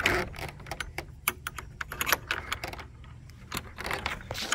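Rusty metal hasp latch on wooden shed doors being worked by hand: a run of small, irregular metallic clicks and rattles.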